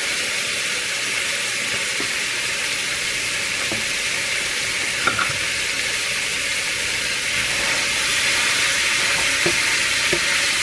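Ground beef sizzling steadily as it browns in a hot pot, with a few light knocks of a spatula against the pot as it is broken up and stirred.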